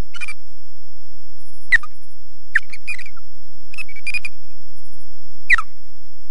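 Osprey giving alarm calls while defending its nest: a series of short, sharp whistled calls, several dropping in pitch, with a quick run of chirps in the middle.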